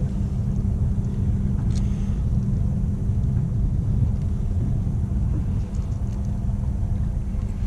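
Steady low rumble with no speech, even in level throughout, the kind of background heard on a small boat at sea.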